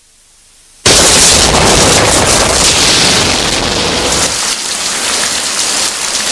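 A rain-and-thunder sound effect. After a brief hush, a loud rushing of heavy rain starts suddenly about a second in, with a low rumble for the first few seconds, then goes on as a steady hiss.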